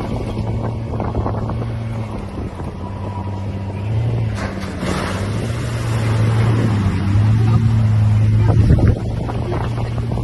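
Car on the road: a steady low drone of engine and tyres with wind noise, swelling a little about two-thirds of the way through.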